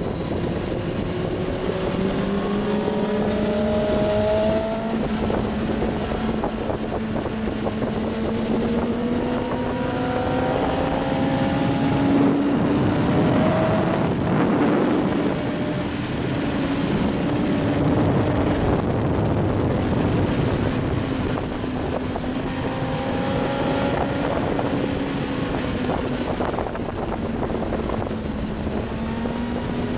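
Onboard sound of a Kawasaki ZX-9R's inline-four engine pulling hard on track, its pitch climbing slowly for the first dozen seconds and then holding and easing off a little, under a steady rush of wind on the microphone.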